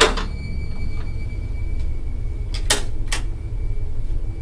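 Steady low rumble of a phone being handled while filming, with a knock at the start and two sharp clicks about two and a half and three seconds in as a closet door is opened. A faint steady high whine runs underneath.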